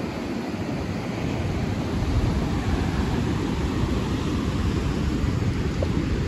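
Wind rumbling on the microphone over the steady wash of surf breaking on the beach, getting louder about two seconds in.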